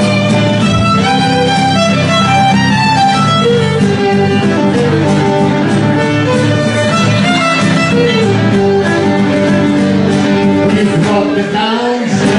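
Live fiddle playing the melody over guitar accompaniment, an instrumental break with no singing.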